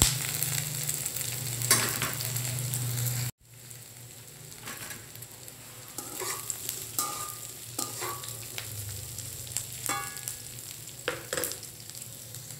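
Oil sizzling in a metal wok as fried tempe cubes are tipped onto onion and chili. After about three seconds the sizzle drops to a quieter level, and a spatula scrapes and knocks against the wok in short strokes as it is stir-fried.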